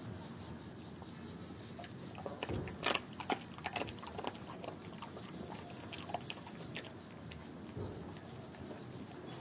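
German Shepherd chewing raw chicken feet: irregular crunches and clicks of bone, with the loudest crunches about three seconds in.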